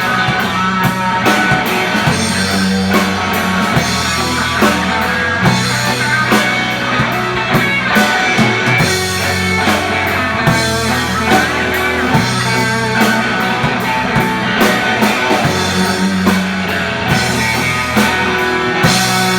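Instrumental passage of a rock song: guitars playing over a steady drum-kit beat, with no vocals.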